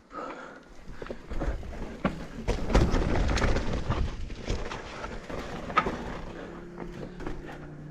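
Mountain bike rattling and knocking over rough trail, with many irregular clatters and a low rumble, loudest in the middle. Near the end it eases into a steadier low hum.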